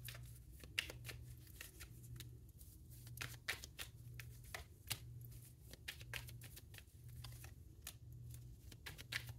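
Tarot cards being shuffled and laid down on a tabletop: a run of soft, quick card flicks and taps.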